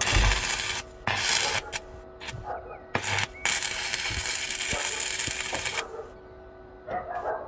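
Stick welding arc from a 6013 rod at about 95 amps, crackling in several short runs broken by gaps, then one longer run of about two seconds that stops about six seconds in.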